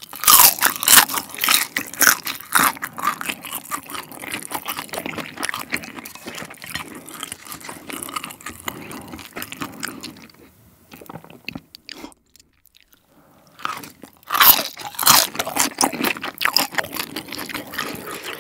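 Close-miked crunching and chewing of a crisp pan-fried chicken-skin dumpling. The crackling bites go on for about ten seconds, pause for a few seconds, then come back loud with a fresh bite.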